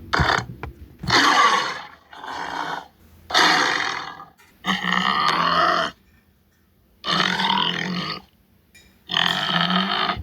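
Tiger growling and grunting in a series of about six rough calls, each around a second long, separated by short pauses.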